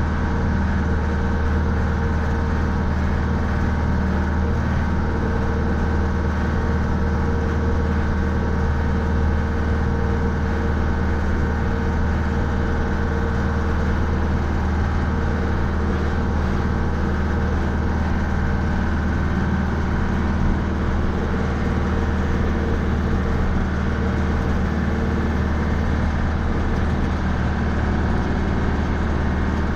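Mahindra 3550 tractor's 50 hp diesel engine running steadily at an even speed.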